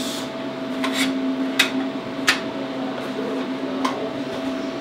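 Gloved hands handling a TIG welding torch on a wooden workbench: glove rubbing and four short, sharp clicks and knocks over a steady electrical hum.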